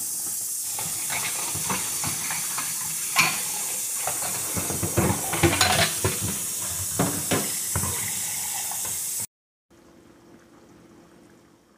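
Kitchen tap running into a stainless steel sink while dishes and utensils clink and clatter, busiest in the middle. About nine seconds in it cuts off abruptly, and butter sauce can be heard faintly simmering in a frying pan.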